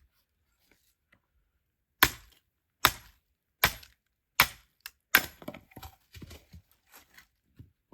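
Pieces of oak firewood knocking sharply, five hard strikes about a second apart, then a quicker run of lighter cracks and clatter.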